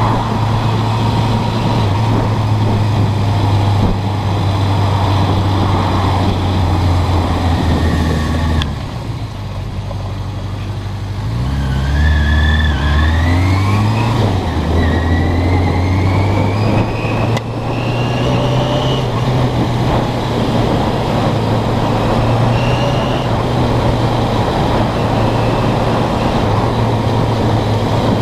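Suzuki GS650G Katana's air-cooled inline-four engine running on the road. About nine seconds in it falls quieter, then rises in pitch through a gear change a few seconds later, before settling back to a steady run.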